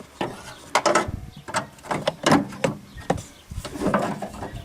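Irregular clunks, rattles and scraping as the old heater blower motor of a 1992 Chevy Astro van is worked out of its housing.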